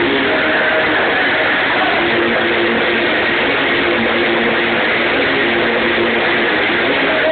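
Loud music playing over a club sound system, dense and noisy, with long held notes.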